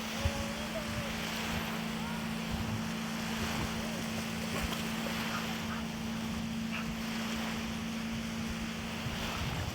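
Wind blowing over the microphone and small waves lapping at a lakeshore, with a steady low hum underneath.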